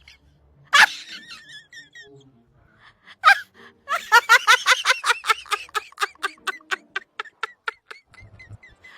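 A short, high-pitched vocal cry about a second in, then a person laughing: a long run of quick pitched 'ha' pulses, about four or five a second, starting a little after three seconds and fading toward the end.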